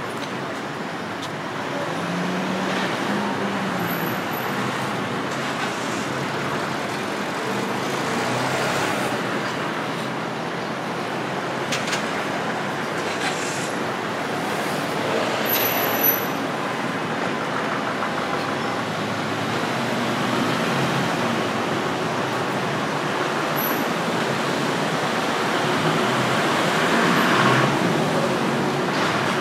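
Street traffic: a steady wash of passing cars on a city road, with a brief sharp knock about halfway through.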